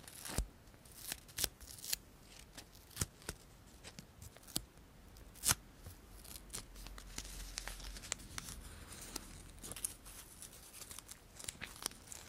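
Close-miked scissors cutting: a run of irregular, crisp snips, with a soft rustling stretch in the middle.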